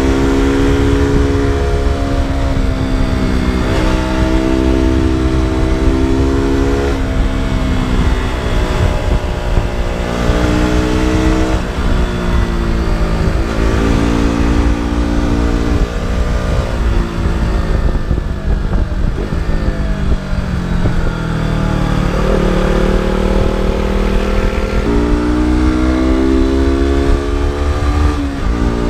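KTM RC 200's single-cylinder engine and exhaust while riding, revving up and shifting through the gears again and again. It eases off and slows for a spell past the middle, holds a steady note for a few seconds, then picks up again near the end.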